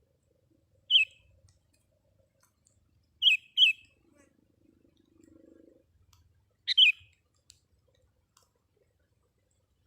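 Sooty-headed bulbul (kutilang) calling: short, sharp chirps, one about a second in, then two quick doubled calls a little past three seconds and near seven seconds.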